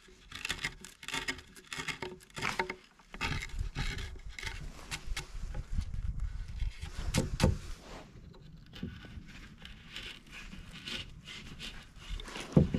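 Chisel and knife scraping and cutting into a wooden board: a quick run of scrapes and small clicks, with a low rumble through the middle. A sharp knock near the end.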